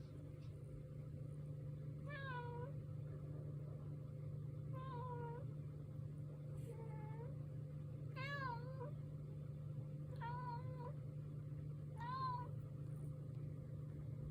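A cat meowing quietly six times, about every two seconds: short "appu"-like calls, begging for food.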